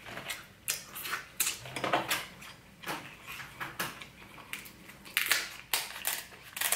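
Kitchen scissors snipping through the shell of a cooked king crab leg: a string of sharp cracks and crunches, one or two a second.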